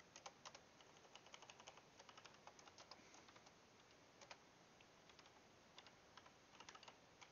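Faint computer keyboard typing: quick, irregular key clicks with a short pause about two-thirds of the way through.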